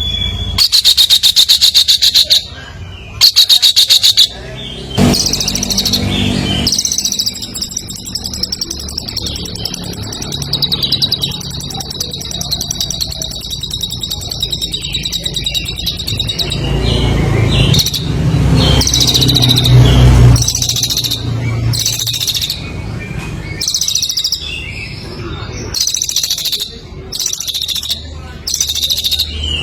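Songbirds singing loud, rapid chattering phrases in repeated bursts, with a long, high, buzzing trill in the middle; energetic contest-bird song of the kind played as master audio to train caged birds.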